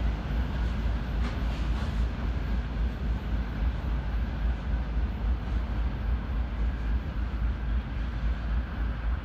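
Container wagons of a freight train rolling away over a steel girder bridge, the wheel rumble on the rails receding. Wind buffets the microphone with a deep, fluttering rumble throughout.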